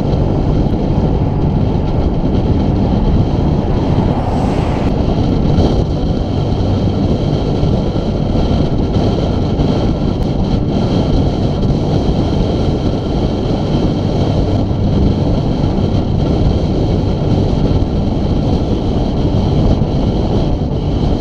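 Steady wind rushing over the microphone of a camera on a moving road bicycle, mixed with tyre noise on tarmac: a loud, even rumble.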